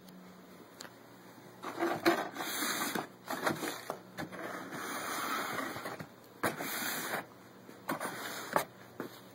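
Handling noise as a metal car amplifier and the camera are moved about by hand: several stretches of rubbing and scraping with a few sharp knocks, starting about two seconds in and stopping shortly before the end.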